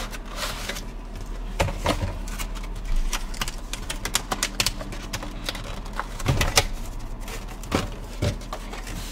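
Cardboard packaging being peeled open and a clear plastic blister tray handled and flexed, giving irregular crinkles, clicks and scrapes.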